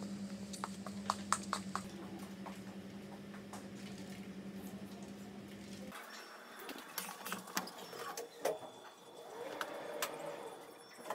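A steady low machine hum with scattered light clicks cuts off abruptly about six seconds in. Irregular clicks, clinks and handling noises follow.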